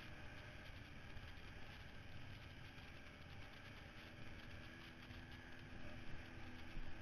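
Kawasaki Brute Force ATV riding slowly over a rough dirt trail, its engine a steady low drone under the noise of the machine on the rocks. A couple of louder knocks come near the end.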